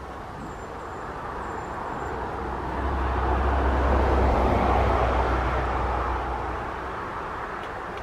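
A vehicle passing: a rushing noise with a low rumble that swells to its loudest about halfway through, then fades away.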